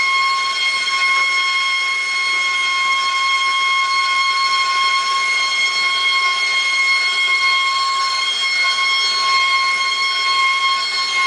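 Gas torch burning, a steady hiss with a constant high-pitched whistle that does not change.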